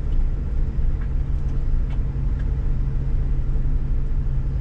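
Scania S500 truck heard from inside the cab while driving, its 13-litre straight-six engine and tyres making a steady low rumble with a constant low hum. A few faint ticks sound over it.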